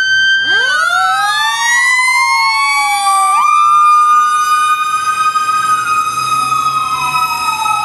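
Fire engine's sirens sounding as it responds to a call, several siren tones wailing at once. One winds up from a low pitch about half a second in, and another falls and then jumps sharply back up near the middle.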